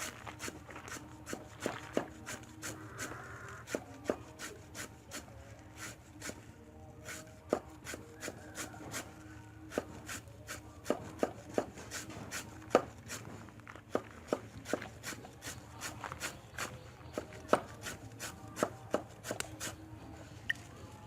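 Knife chopping on a cutting board: irregular sharp chops, about two to three a second, over a low steady hum.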